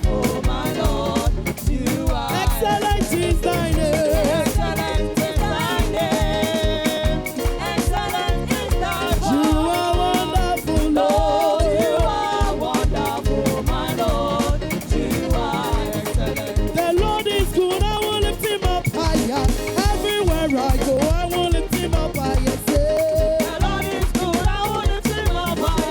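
Upbeat, danceable gospel praise music with a fast steady drum beat and voices singing over it.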